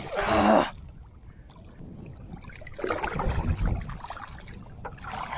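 Hooked snook thrashing at the water's surface: a loud splash right at the start, then quieter water noise and another rush of splashing about three seconds in.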